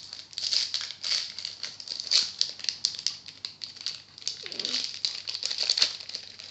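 Crinkling and rustling of a foil trading-card pack wrapper being handled and torn open, an irregular run of crackly rustles.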